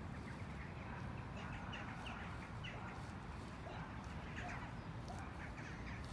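Birds chirping: many short, quick calls scattered over a steady low rumble.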